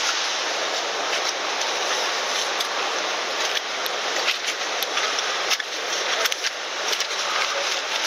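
Gullfoss waterfall rushing in a steady, dense hiss. From about halfway through, scattered crunching footsteps on icy slush sound over it.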